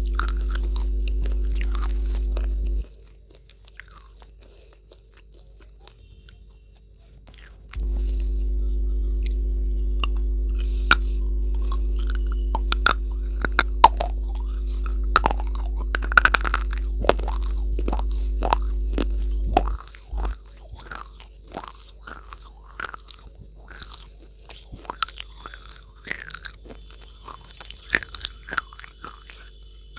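Close-miked biting and chewing of a brittle white chalk-like slab: many sharp crunches and snaps. A loud, steady low electrical hum runs under the crunching for the first three seconds, drops out, returns at about eight seconds and cuts off at about twenty seconds.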